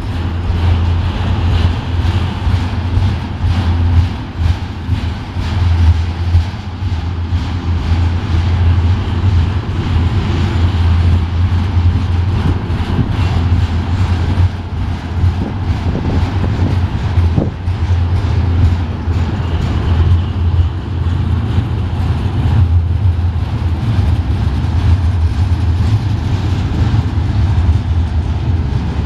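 Double-stack container train rolling past at close range: a loud, steady low rumble of steel wheels on rail with frequent irregular clanks from the articulated well cars.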